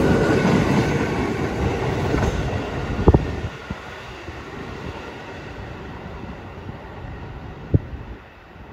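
New York City subway train running past on the Brighton Line, its rumble fading over the first three seconds or so as it moves away. A sharp clack sounds about three seconds in and another near the end.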